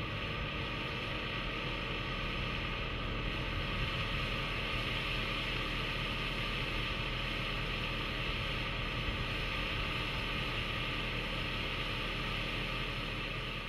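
Ford F-150 SVT Raptor's V8 idling at a standstill under a steady hiss, fading out near the end.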